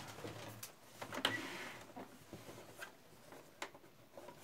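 Faint rustling of fabric and elastic being handled and positioned under a sewing machine's presser foot, with a few light irregular clicks; the machine itself is not running.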